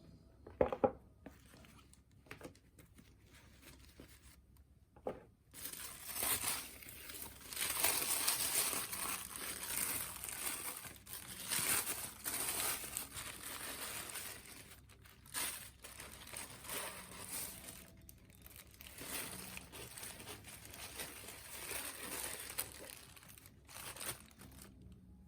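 Packaging paper being handled and unwrapped, rustling almost continuously for most of the stretch, rising and falling in loudness. A couple of short knocks come before it, near the start and about five seconds in.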